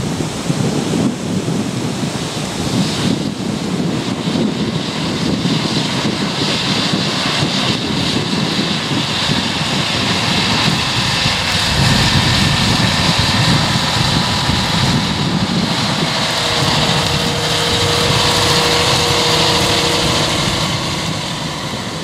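John Deere 6250R tractor's six-cylinder diesel engine working under load, pulling a six-furrow Lemken plough through stubble, with heavy wind rumble on the microphone. A steady whine rises out of the noise in the last third.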